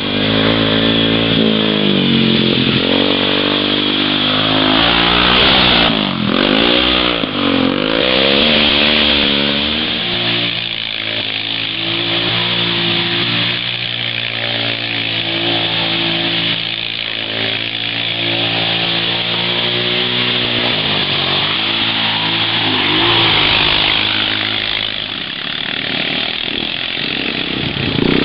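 ATV engine running hard through mud, its pitch dipping sharply and climbing back several times in the first eight seconds as the throttle is worked, then holding steadier, with a constant high hiss over it.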